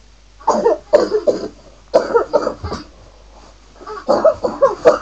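A person coughing in three short bouts, each made of several quick coughs.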